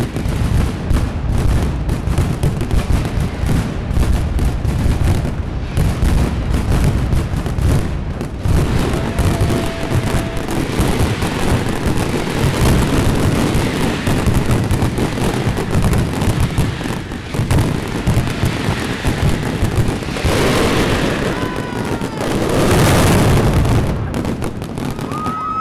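Mascletà: a continuous, rapid barrage of loud firecracker bangs that grows densest and loudest a few seconds before the end.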